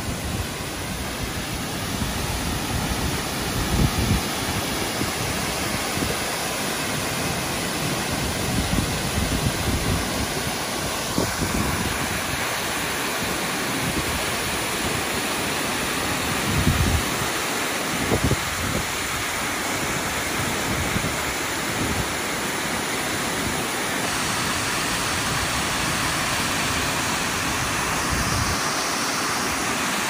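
Waterfall with a 30 to 40 m main drop plunging into a rock pool: a steady, even rush of falling water. Low rumbles of wind buffeting the microphone come and go, strongest around 4, 9 and 17 seconds in.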